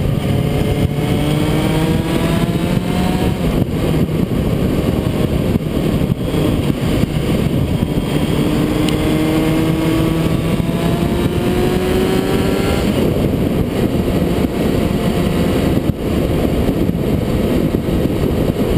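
Honda CBR600 inline-four engine under way, its note climbing in pitch twice, near the start and again through the middle, then fading into a steady rush of wind and road noise for the last few seconds.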